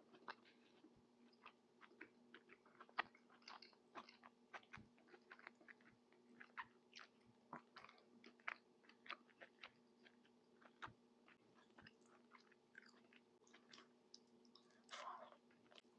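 Faint close-miked chewing and mouth sounds of someone eating Moroccan tajine: many irregular soft clicks and smacks, over a faint steady hum.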